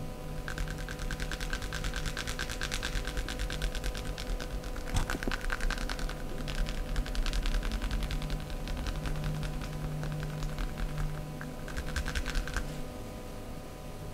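Massage hands working quickly, making a rapid, even run of light taps that starts about half a second in and stops shortly before the end, over a faint steady hum.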